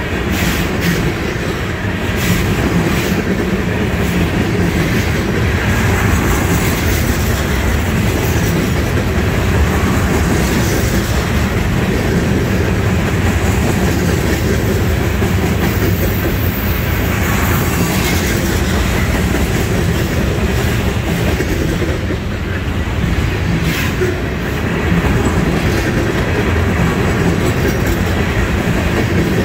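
Freight cars of a trash train rolling past: a steady rumble of steel wheels on rail with a clickety-clack of wheels over rail joints.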